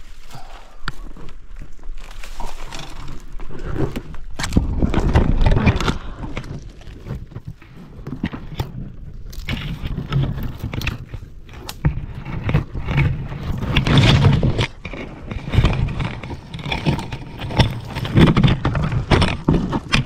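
Dry brush and branches rustling, crackling and snapping close by as someone climbs up into a thicket, with irregular scrapes and low bumps throughout.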